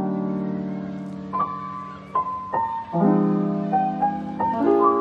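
Background piano music: held chords, struck afresh several times.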